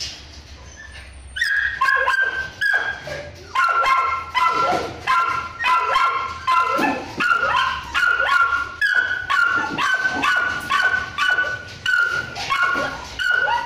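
A dog giving a rapid series of short, high-pitched yips, about two a second. They start about a second and a half in.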